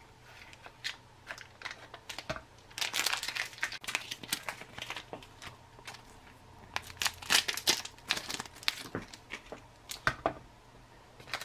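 Plastic ration pouches of beef jerky crinkling and crackling as they are handled and torn open, in irregular bursts, with a pause about halfway through.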